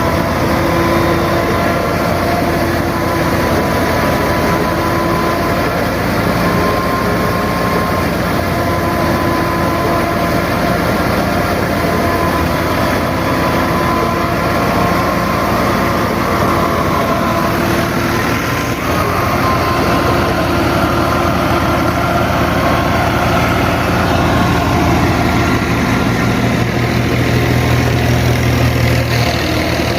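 Tractor engine running steadily at a constant speed, a loud continuous low rumble with a steady drone, growing slightly fuller in the low end near the end.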